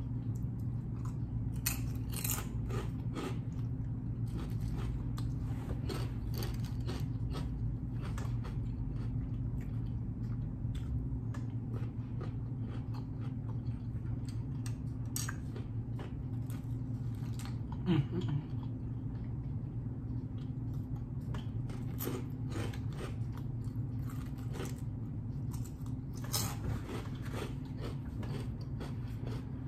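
Close-up chewing and crunching of kettle-cooked potato chips, sharp crisp crunches scattered through, over a steady low hum. A brief vocal sound from the eater a little past the middle.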